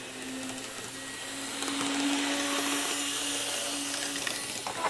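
Kato N scale Santa Fe F7A and F7B model locomotives running on the track: a steady motor whir and wheel noise that swells as the units pass close, about two seconds in, then eases off. A couple of small clicks come near the end.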